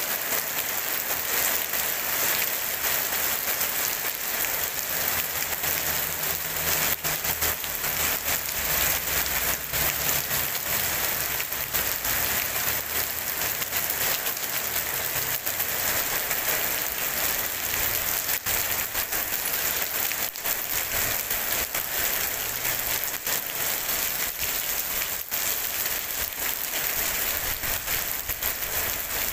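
Steady rain falling on wet pavement, a dense even hiss made of countless small drop splashes.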